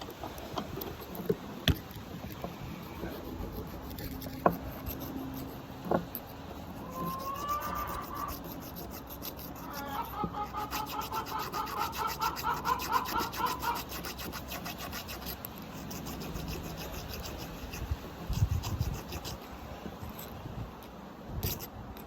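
Hand rubbing and scraping on a small workpiece, with a few sharp clicks early on and a fast, rhythmic, squeaky chatter for a few seconds about ten seconds in.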